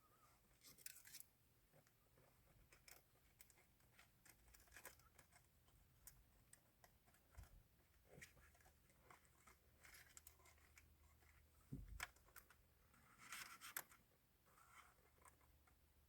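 Faint scattered clicks and scratches of plastic instrument-cluster parts and wiring being handled, as the wires are fed through under the lifted cluster face.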